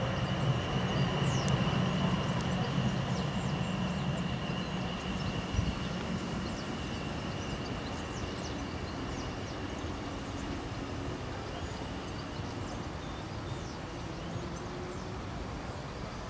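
Class 444 electric multiple unit pulling away, its running sound fading as it draws off down the line. A steady high whine is heard with it and dies away near the end.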